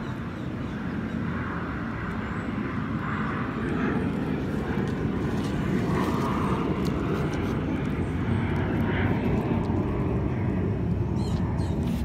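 A steady low rumble that grows slowly louder, with a dog sniffing at the dirt close by in short bouts.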